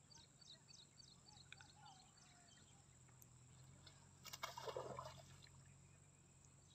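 Mostly near silence, with faint bird chirps repeating quickly over the first two seconds. About four seconds in comes a brief splash of water as the fishing net is worked in the shallow river.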